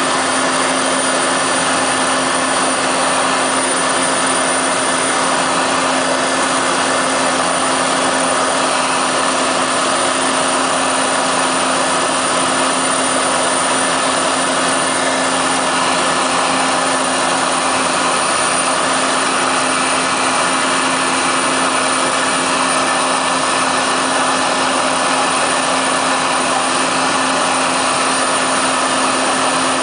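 Cabin noise of a Cessna 208B Caravan in flight: the single PT6A turboprop engine and propeller drone at a constant setting, a steady hum under a loud, even rushing hiss.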